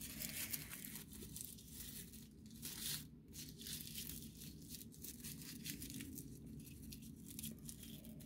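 Faint rustling and crinkling of a raffia strand handled by fingers while it is being tied, with a few louder scratchy moments.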